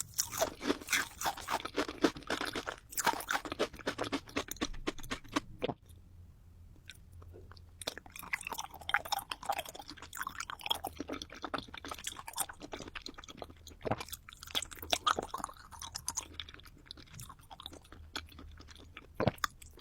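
Close-miked crunching and chewing of candy: dense crunches for the first six seconds or so, a short lull, then quieter chewing with a few sharp crunches.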